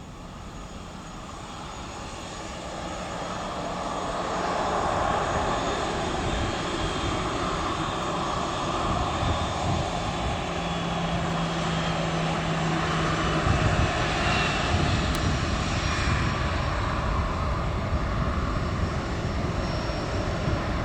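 Airbus A320 jet engines at taxi power as the airliner rolls past, growing louder over the first few seconds and then holding steady. A high engine whine glides slowly down in pitch over it.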